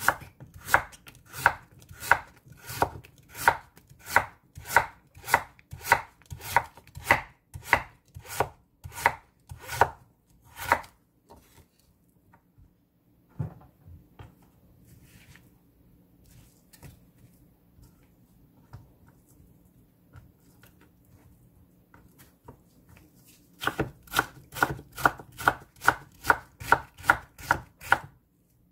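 Chef's knife cutting a Korean radish on a wooden cutting board: regular knocks of the blade through the radish onto the board, about one and a half a second, for the first ten seconds or so. Then a quiet stretch with a single knock, and near the end faster chopping, about three strokes a second, as the stacked slices are cut into matchsticks.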